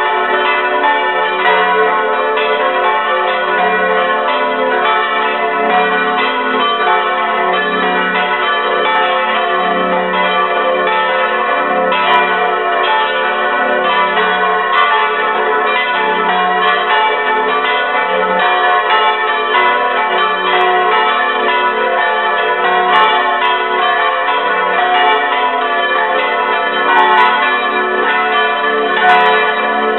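Full peal of four swinging bronze church bells, with strike notes F♯, A, B and D, striking over and under one another in a continuous, overlapping clangour, heard close up from inside the belfry.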